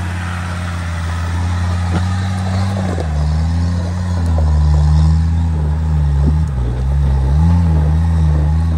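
Off-road 4x4's engine running under load while working over a rough obstacle. It is steady for the first few seconds, then its pitch dips and wavers up and down as the driver works the throttle.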